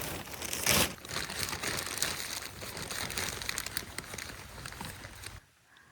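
Steady crinkling and rustling of crinkly material being handled and rummaged through, with one louder crunch about a second in. It stops abruptly near the end.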